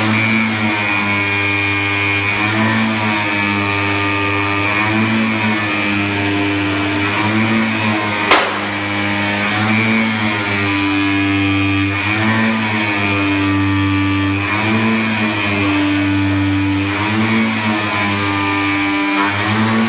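CNC flatbed digital cutter cutting 20 mm EVA foam: a steady machine hum under motor whines that rise and fall every second or two as the cutting head speeds up and slows down along its path. One sharp click comes about eight seconds in.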